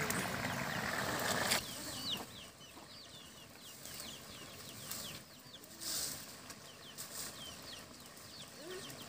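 Chickens clucking, with many short high chirps throughout; a louder steady hiss cuts off about a second and a half in.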